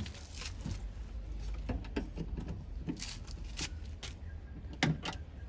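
Scattered light clicks and taps of a screwdriver working screws into a car door's lock actuator mounting, over a low steady hum; the sharpest tap comes near the end.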